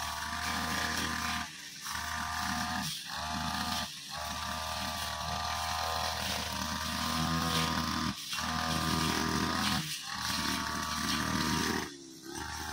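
Backpack brushcutter engine running steadily while its blade cuts grass and small plants, with the sound cutting out briefly several times.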